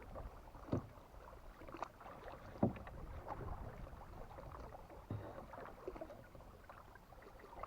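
A canoe being paddled: irregular paddle strokes with short knocks, a second or two apart, over a steady wash of water.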